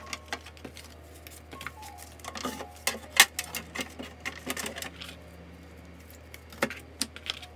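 Pens and small plastic stationery items clicking and clacking against each other and the desk as they are handled. The irregular run of clicks is busiest in the middle, with the sharpest clack about three seconds in.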